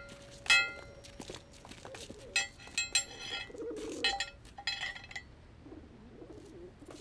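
A hand-struck metal school bell clanging about five times at uneven intervals, each stroke ringing on with bright overtones. A bird coos softly in the gaps.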